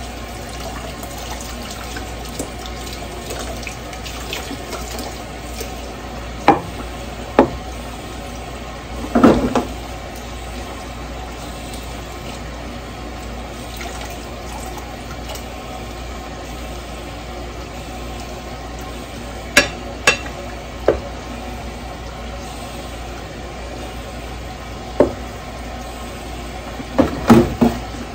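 Kitchen tap running steadily into the sink while dishes are washed, with sharp clinks and knocks of dishes against each other and the sink every few seconds, a cluster near the end.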